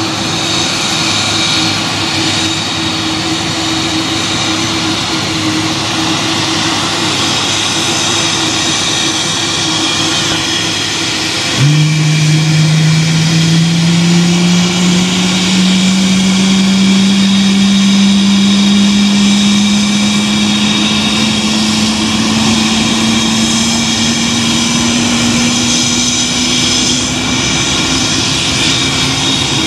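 McDonnell Douglas MD-11F freighter's jet engines and whine. A steady high whine runs throughout. About twelve seconds in, a louder, lower whine cuts in suddenly and climbs slowly and steadily in pitch as an engine spools up during start.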